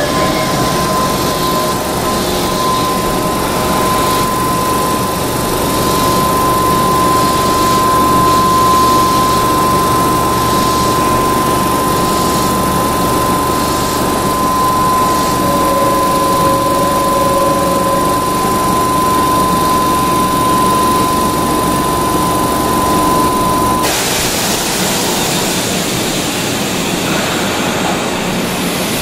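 Underfloor air compressor of a stopped Keihan electric train running steadily, with a steady high whine. The whine cuts off about 24 seconds in, leaving a hissing noise.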